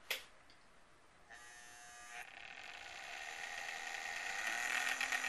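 Small electric motor of an HO-scale AHM diesel locomotive buzzing, starting about a second in and growing steadily louder as the throttle is turned up, while the locomotive doesn't move.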